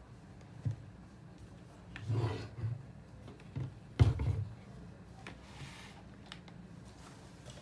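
Plastic paint tubes and bottles handled on a wooden tabletop: rubbing and sliding against the wood, with a few knocks as they are set down. The loudest is a sharp knock about four seconds in.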